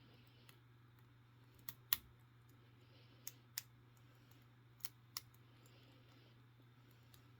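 Lock pick working the pin stack of a Smith & Locke 50mm padlock's cylinder: three pairs of faint, sharp metallic clicks, each pair about a third of a second apart, as pins are probed and set.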